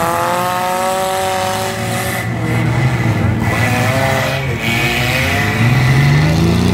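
Demolition derby cars, a compact car and small pickups, with their engines revving hard. The pitch climbs in the first second, sags over the next couple of seconds, and climbs again near the end as the drivers accelerate on the dirt.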